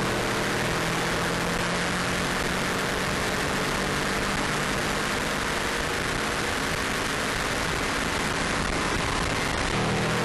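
Subaru Impreza WRX RA's turbocharged flat-four engine running at speed on a race track through a stainless exhaust, under a steady rush of wind and road noise. The engine note is weaker through the middle and comes back stronger near the end.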